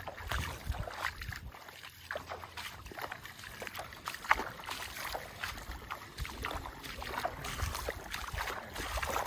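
Footsteps wading through ankle-deep seawater, with irregular small splashes and sloshes and some wind rumble on the microphone.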